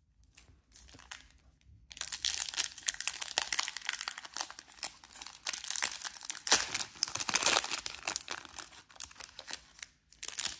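Plastic wrapper of a Topps Chrome trading-card pack being crinkled and torn open along its crimped seal: a few faint rustles, then a dense crackling from about two seconds in that thins out near the end.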